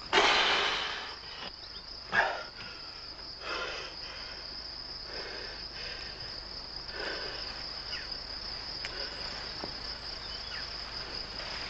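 Crickets chirring in a steady, high, continuous trill. A loud rustling swish at the start fades over about a second, and a few softer rustles follow.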